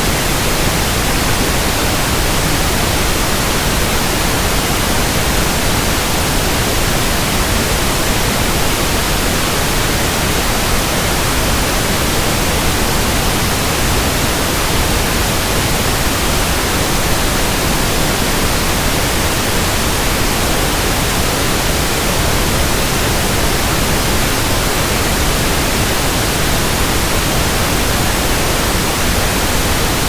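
Steady pink noise test signal: an even, unbroken hiss across the whole range at a constant level, of the kind played to measure a sound system's frequency response.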